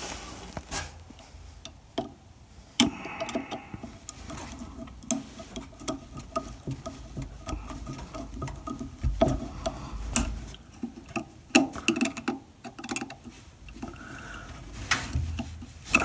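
A screwdriver working the screw terminals of a doorbell transformer while a doorbell wire is fastened under them: irregular light clicks, scrapes and rustling of the wire.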